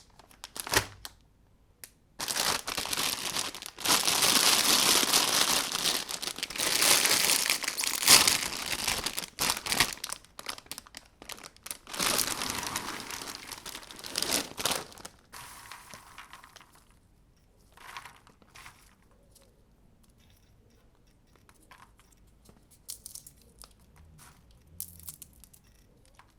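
Popcorn being crushed in a meat grinder: dense dry crinkling and crunching for about fourteen seconds, then thinning to scattered crackles.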